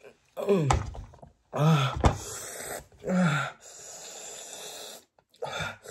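A person groaning and gasping from the burn of spicy ramen broth just drunk: three short moans that fall in pitch about a second apart, then a long breathy exhale.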